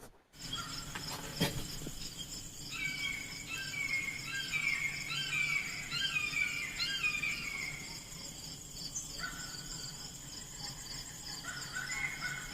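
Outdoor insects trilling steadily in a fast, even pulse, with a bird singing runs of short falling chirps from about three to eight seconds in and again near the end. There is one sharp click early on.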